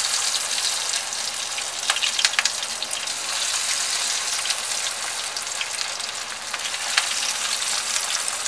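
Masala-coated mutton chops frying in hot mustard oil in a kadhai: a steady sizzle with scattered crackles and pops.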